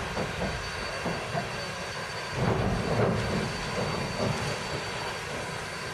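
Ex-Canadian National 0-6-0 steam locomotive No. 7470 moving slowly into a roundhouse stall: a steady hiss and rumble with a few louder bursts, the loudest about two and a half to three and a half seconds in.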